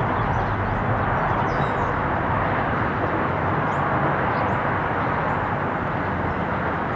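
Steady rushing jet noise of a Boeing 777's GE90 turbofan engines on final approach with the landing gear down, even in level without rising or falling.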